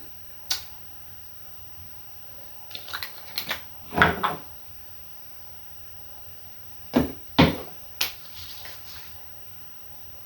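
A few scattered knocks and clicks of small objects being handled and set down, with a louder thud about four seconds in and two more about seven seconds in.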